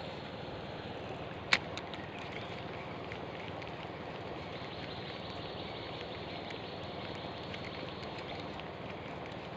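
Steady rush of flowing river water, with one sharp click about a second and a half in.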